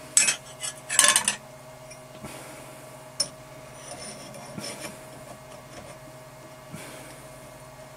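A steel rule clattering as it is set down on the milling machine's steel table, followed by a few lighter metal clicks and taps as a Morse taper drill is handled in the dividing head's holder. A steady low hum runs underneath.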